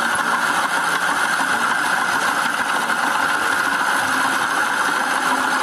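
Steady spray of running water washing mud off a plastic toy bulldozer, an even hiss that holds unchanged.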